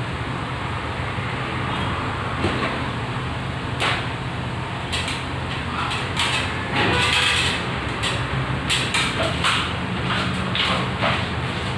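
Scattered clicks, knocks and short rattles of tools and light-fixture parts being handled at a stepladder, busiest in the second half, over a steady low hum.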